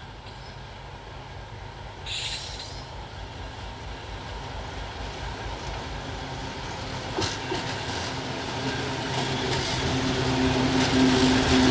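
Twin-section 2TE25K diesel locomotive approaching at the head of a work train, its engine and running gear growing steadily louder, with steady engine tones coming up strongly near the end. A short hiss comes about two seconds in.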